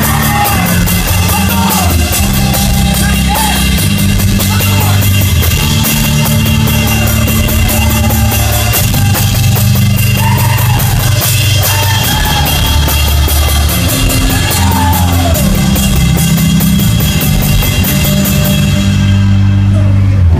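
Live rock band playing through the stage PA: drum kit driving a steady, fast cymbal beat under a bass line, with a singer's voice over the top. The cymbals drop out near the end.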